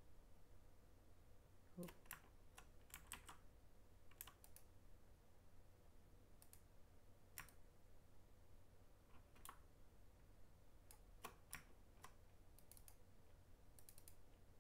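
Faint, scattered clicks of a computer keyboard and mouse, in small clusters a second or two apart, over a low steady hum.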